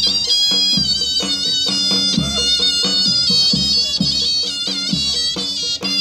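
Live Turkish folk dance music, amplified: a shrill, ornamented reed-pipe melody over a steady big-drum (davul) beat.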